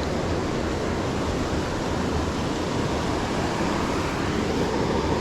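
Mountain creek water rushing, a steady even noise with no breaks.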